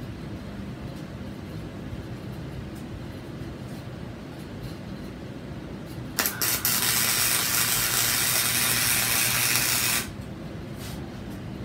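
Wire-feed (MIG) welder: a steady low hum, then about six seconds in the arc strikes with a brief stutter and runs as a loud, even crackling sizzle for about four seconds before cutting off.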